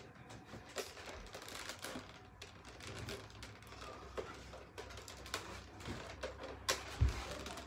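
Close handling noise: irregular light clicks and rustles of things being moved about near the microphone, with one louder knock about seven seconds in.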